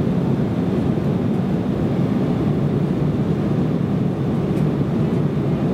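Steady drone inside the cabin of an Embraer ERJ-170 airliner in flight: the noise of its two turbofan engines and the airflow around the fuselage, heard from a seat aft of the wing.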